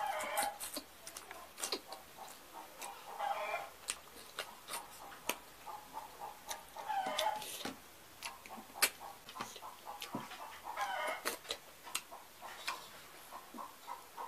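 Close-up eating sounds from a person eating a saucy meal by hand: frequent sharp lip smacks and mouth clicks, with a short sucking or slurping sound every three to four seconds.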